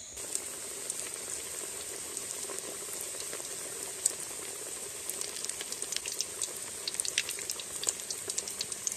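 Tuna and baby jackfruit roll deep-frying in hot oil in a metal wok: a steady sizzle, with scattered pops and crackles that grow more frequent from about five seconds in.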